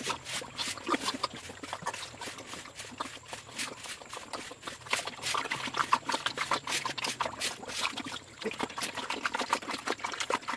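Pigs slurping and lapping water from a trough: a rapid, irregular run of small wet smacks and splashes.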